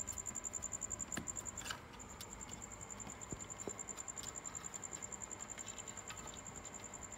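Faint scattered clicks and scrabbling of a kitten's claws gripping cloth and wood as it climbs, over a steady, quickly pulsing high-pitched whine.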